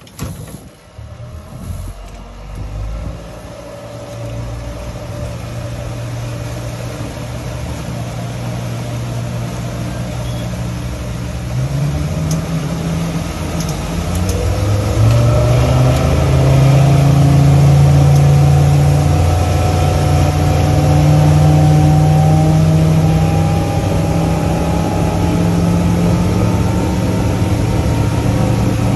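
Suzuki 175 hp outboard motor on an aluminium catamaran boat. It runs steadily at low speed for about twelve seconds, then the throttle opens and its note rises and grows louder as the boat speeds up to about 37 mph. It then holds at a steady high cruising speed.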